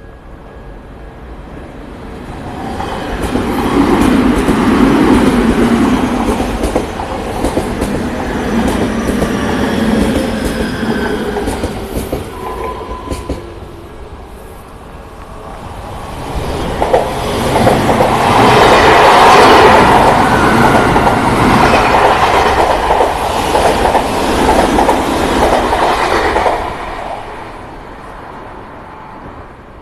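Two Odakyu Odawara Line electric commuter trains passing a level crossing one after the other. The first builds from a few seconds in and fades away past the middle; the second builds soon after, is the louder of the two, and dies away near the end.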